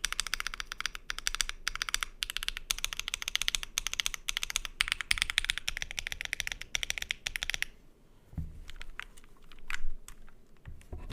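Keychron Q10 mechanical keyboard with BSUN Cliff switches on a POM plate, typed on quickly and steadily. The typing stops about three-quarters of the way in, leaving a few scattered soft clicks and low knocks.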